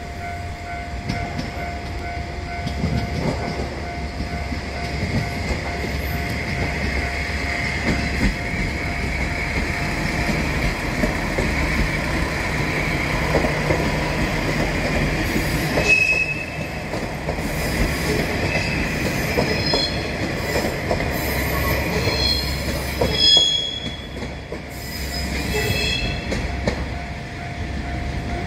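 JR train running past, its wheels rumbling and clacking over the rails. High wheel squeal sets in about halfway through and comes in short bursts until near the end.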